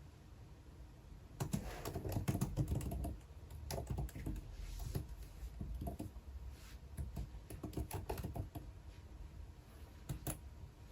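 Typing on a computer keyboard: a quick run of keystrokes a second or so in, then slower, scattered key presses with short pauses, and one sharper click near the end.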